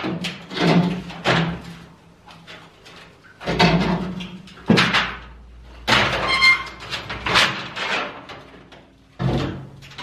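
Large old multi-pane window frame being pulled out from behind stacked crates and stood upright: a series of scraping, bumping and clattering handling noises, with a brief metallic ring about six seconds in.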